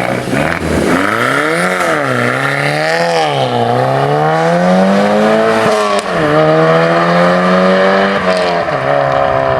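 Car engine with freshly fabricated exhaust revving, its pitch rising and falling a few times, then climbing steadily and dropping sharply twice.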